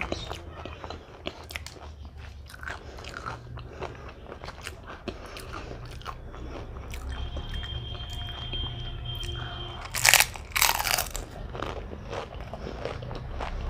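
Close-miked crunching and chewing of fried fuchka (pani puri) shells topped with yogurt, a run of small crisp cracks and wet mouth sounds. The loudest crunches come in two bursts about ten seconds in.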